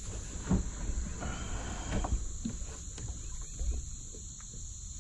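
Dull knocks and a brief scrape from a plastic sit-on-top fishing kayak and the gravel around it as a man climbs out onto the shore: a knock about half a second in, a scrape leading into another knock near two seconds, and a lighter one near four seconds. Under it runs a steady high-pitched drone of insects.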